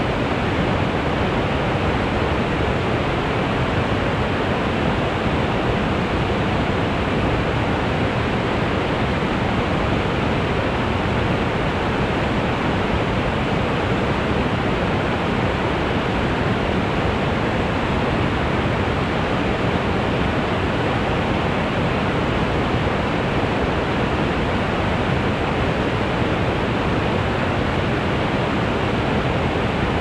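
Waterfall: falling water in a steady, dense rush that does not change.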